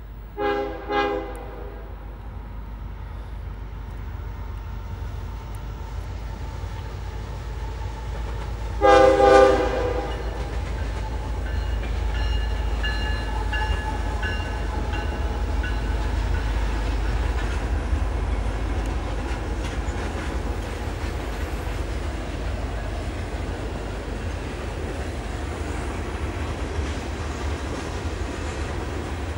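Diesel freight locomotive horn sounding two short blasts about half a second in, then two louder blasts about nine seconds in. Afterwards the locomotives and freight cars rumble steadily past.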